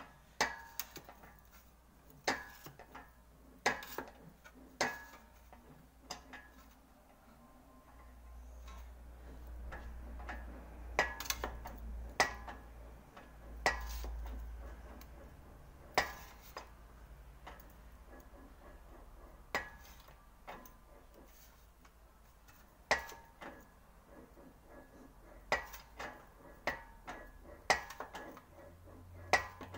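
Sheet-metal repair panel being worked through an English wheel: sharp, irregular metallic clanks with a short ringing note as the panel shifts between the wheels, and a low rumble that swells in the middle as it is rolled.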